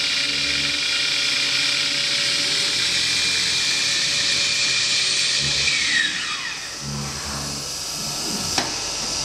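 IMA BIMA 600 CNC machining centre's spindle running at speed with a steady high whine, then spinning down in a falling whine about six seconds in. A single sharp click comes near the end.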